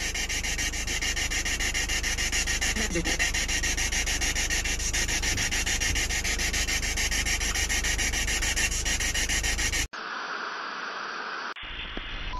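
A steady, rapidly pulsing insect chorus in summer woodland. About ten seconds in it cuts off abruptly into the hiss of TV static.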